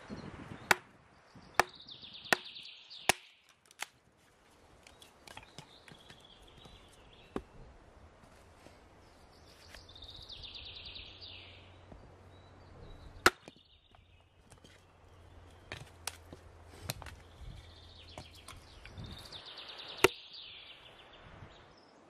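Small hatchet striking and splitting a block of wood: about ten sharp knocks at irregular intervals, four of them close together near the start.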